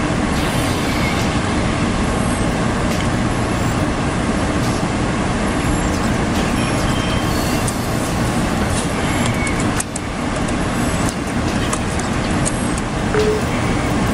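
Loud steady rumbling noise with a few faint clicks in the second half.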